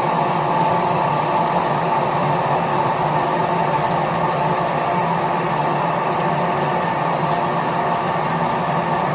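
ALTCK36A slant-bed CNC lathe running, its spindle and chuck spinning a long metal shaft held on the tailstock centre, giving a steady machine hum.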